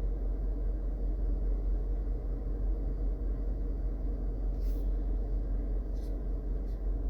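Steady low rumble of background noise, with two faint clicks in the second half.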